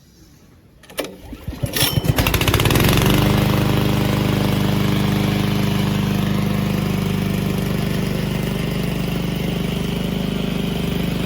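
Loncin 224 cc single-cylinder four-stroke petrol engine of a remote-control mower being pull-started with its recoil starter about two seconds in. It catches at once and settles into a steady run.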